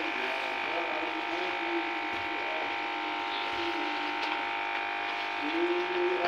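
Steady electrical hum made of several tones at once, with a few faint scrapes as a wooden spoon stirs the curry in a wok.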